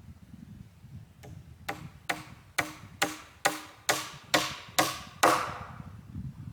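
A series of about nine sharp taps, evenly paced a little under half a second apart, each ringing briefly, the last one the loudest, as if something hard is struck again and again.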